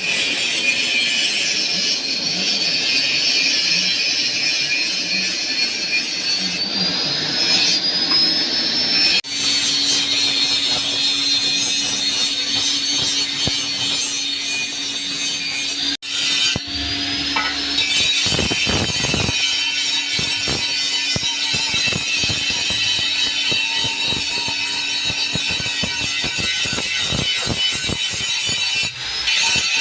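A hoe blade being ground sharp: a steady grinding rasp with a high, wavering whine, broken off abruptly about 9 and 16 seconds in.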